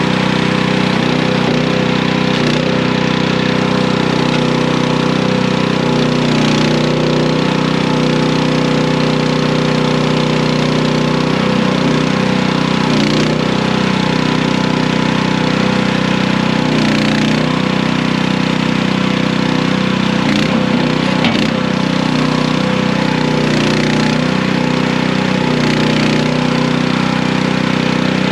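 Skid steer engine running steadily under the operator as it is driven, its pitch dipping and recovering briefly every few seconds as the machine is maneuvered and the load changes.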